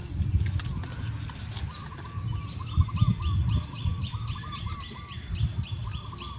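Birds calling: short warbling notes, then from about two and a half seconds in a quick, even run of high chirps, about five a second. A low rumble runs underneath.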